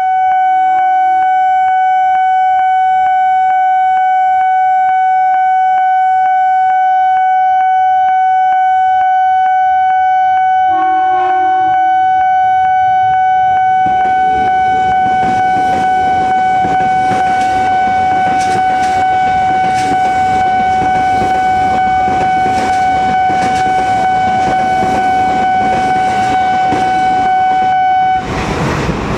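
Level-crossing warning alarm on a KRL commuter line, very loud, sounding as one steady high tone that cuts off suddenly near the end, with a brief lower sound about eleven seconds in. From about halfway through, an electric commuter train passes with rumble and rhythmic wheel clatter, which carries on after the alarm stops.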